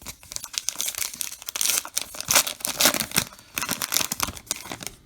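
Baseball card pack wrapper crinkling and tearing as it is ripped open, a dense run of crackles.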